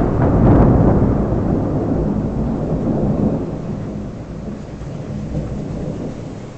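Close thunder: a sharp crack right at the start, then a long, loud rumble that slowly fades.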